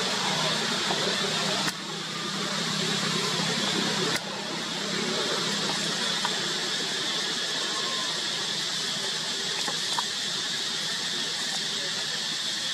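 Steady high outdoor hiss, likely insect or forest ambience, with no clear monkey call; it drops abruptly twice early on, at edit cuts.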